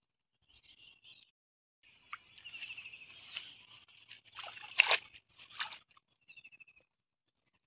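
Rustling and crackling of weeds being trodden and parted by hand, with a few sharp snaps, loudest about five seconds in. Short, high chirping trills from a small animal sound several times.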